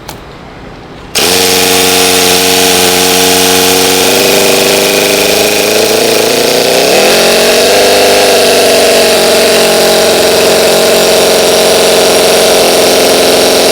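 Small model four-cylinder nitro engine running at high speed. It comes in suddenly about a second in, its pitch climbs as it revs up near the middle, then it holds steady.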